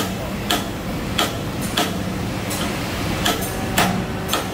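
Hand hammer striking steel tooling on a press, about seven sharp metal-on-metal blows at a steady pace, roughly one every two-thirds of a second, over a steady low hum of factory machinery.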